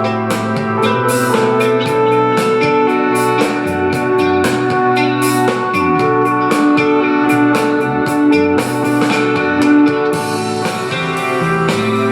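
Instrumental music with guitar and drums, played back through a JBL Clip portable Bluetooth speaker.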